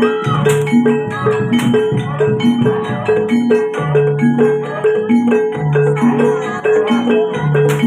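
Javanese gamelan music accompanying a jaranan dance: bronze metallophones ring out a fast, even, repeating pattern of notes, about three a second, over slower low notes, with sharp percussion strokes.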